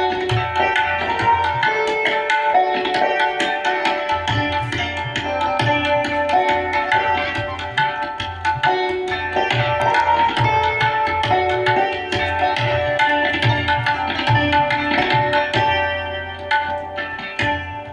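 Santoor played with quick, dense hammer strokes, its struck strings ringing over one another in raag Charukeshi, with tabla accompaniment keeping a pulse underneath.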